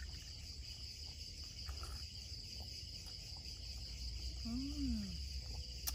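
A steady, high-pitched chorus of night insects, with a brief hummed 'mm' that rises and falls in pitch about four and a half seconds in.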